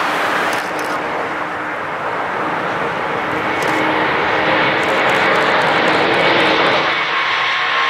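Antonov An-124's four D-18T turbofan engines at takeoff power as the freighter rolls down the runway and lifts off: a loud, steady jet roar with a faint whine running through it, growing a little louder about halfway through.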